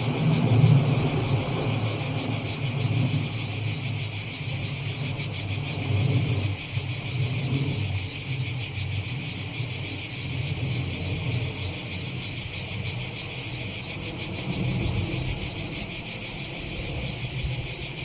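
A steady, high-pitched chorus of insects singing without pause, over a low, uneven rumble.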